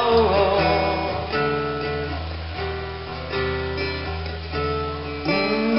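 Acoustic guitar strummed through a PA, playing sustained chords that change about every second.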